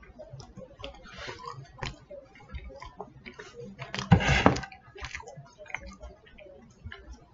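Chewing a boneless chicken bite, with small wet mouth clicks throughout. About four seconds in comes a short, louder clatter and rustle of handling.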